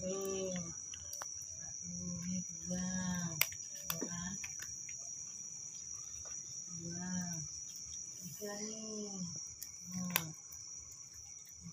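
A cricket trilling steadily, with a short low call every few seconds and a few sharp clicks.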